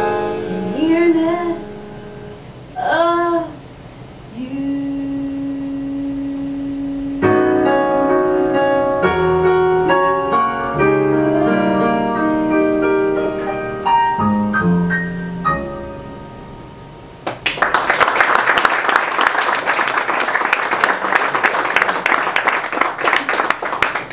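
A woman singing the last phrases of a cabaret ballad with piano accompaniment, the piano playing the closing chords. About seventeen seconds in, the audience breaks into applause that runs on to the end.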